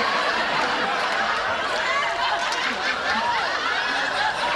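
Sitcom studio audience laughing, with scattered whoops rising and falling over the steady laughter.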